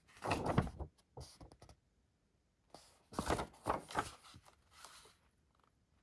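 Handling noises: a cluster of thuds and scrapes in the first second and a half, then another run of knocks and rubbing from about three to five seconds in.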